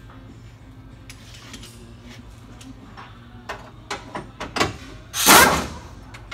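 A few clicks and knocks of metal handling, then a pneumatic air ratchet on a shop air line runs in one short burst of just under a second, spinning out a bolt while the truck's front bumper is being removed.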